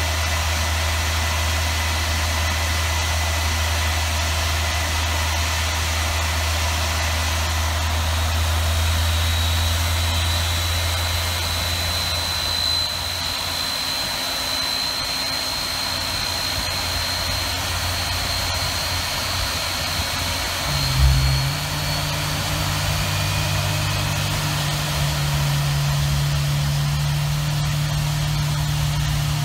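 Large airliner turbofan engine spooling up during its start on the air turbine starter: a steady low hum with a faint high whine rising slowly. About two-thirds through there is a brief thump and a deeper, steady rumble sets in as the fuel lights.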